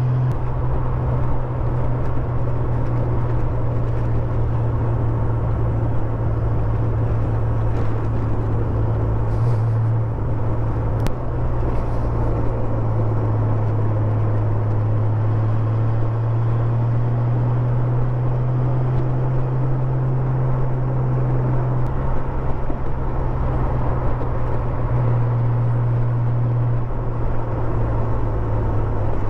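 Honda Gold Wing touring motorcycle engine running at a steady cruise, heard from the saddle, with wind and road noise. The engine note drops briefly about ten seconds in, then shifts slightly a few more times as the throttle changes.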